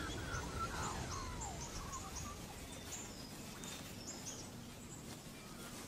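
Bush ambience with birds calling: a run of quick warbling, gliding notes in the first second or so, then scattered short high chirps over a soft background hiss.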